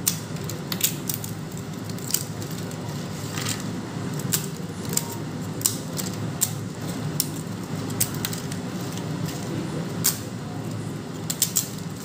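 Crisp fried papads being snapped and crumbled by hand, giving irregular sharp cracks and crackles over a steady low background hum.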